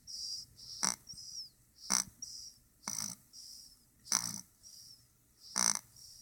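Snoring: five short, loud breaths at about one per second, with a faint high hiss between them.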